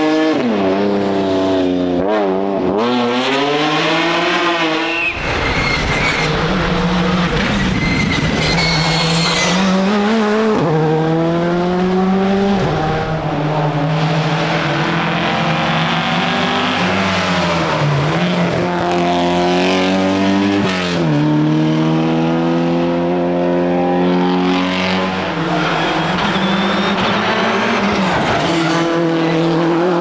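A series of rally cars on a tarmac stage, a BMW coupe and then an Opel Kadett among them, each engine revving hard, rising and falling through gear changes as it passes. Tyres squeal as the BMW slides through a hairpin near the start.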